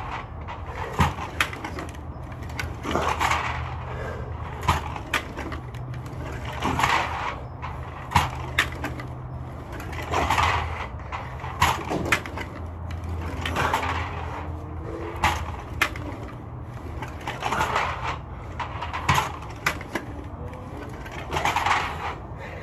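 A man breathing hard in a slow, even rhythm, with a forceful exhale about every three and a half seconds and a sharp knock between exhales, as he works through ab wheel rollouts. A low steady hum runs underneath.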